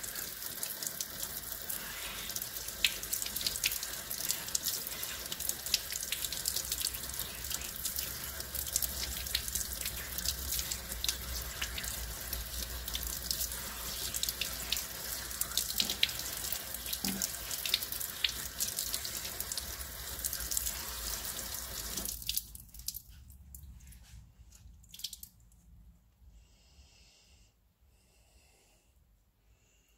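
Hand-hot water from a shower-spray sink tap spattering steadily over wet fabric held under it, rinsing away water-soluble stabiliser film. The water is turned off about 22 seconds in.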